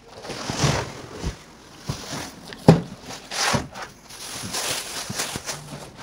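Large cardboard box being pulled up and off a chest freezer: the cardboard scrapes and rustles in uneven swells, with a few knocks, the sharpest about two and a half seconds in.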